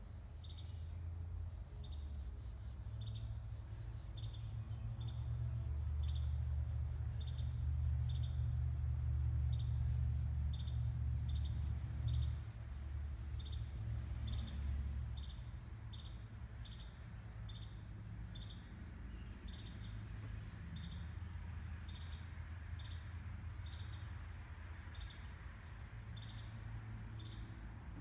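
Insects chirping and droning: short high chirps repeating roughly once or twice a second over a steady high buzz. A low rumble, stronger in the first half, runs underneath.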